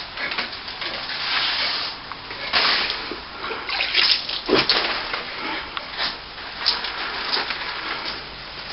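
A wet brush splashing and swishing water onto cracked lath-and-plaster, in irregular strokes and splatters, wetting the cracks down before they are filled.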